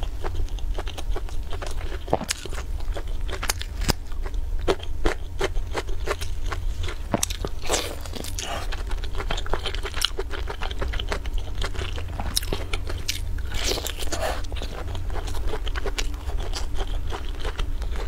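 Eating sounds: crunchy bites, chewing and many sharp clicks as food is torn apart with plastic-gloved hands, over a steady low hum.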